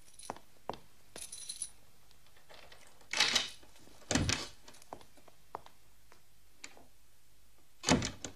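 Scattered clicks and light knocks, with a brief metallic jingle about a second in and three louder thuds, around three, four and eight seconds in.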